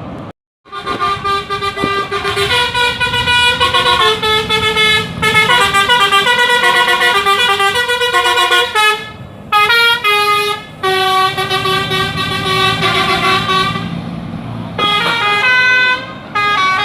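Bus 'telolet basuri' musical air horn playing a quick tune of stepped notes. It starts about half a second in and breaks off briefly a few times.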